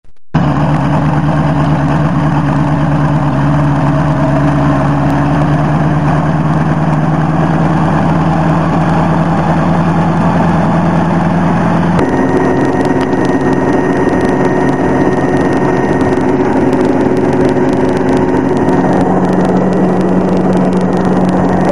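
CH-7 Kompress light helicopter's engine and rotor running steadily on the ground. About halfway through the sound cuts abruptly to a different steady engine drone, heard from inside the cockpit.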